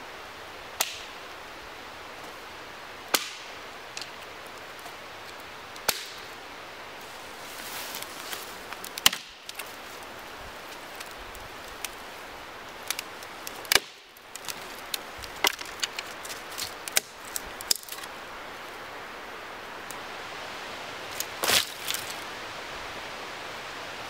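Dry dead branches being snapped by hand off a fallen tree: sharp cracks, a few spaced single snaps, then a quicker run of snaps in the middle and a double crack near the end, over a steady rushing background.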